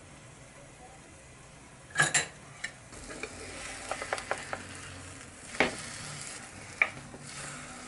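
Egg, shredded cabbage and carrot patties sizzling in a two-cup nonstick frying pan. A spatula knocks sharply against the pan as the patties are flipped: a pair of clacks about two seconds in, a quick cluster around four seconds, then single knocks later.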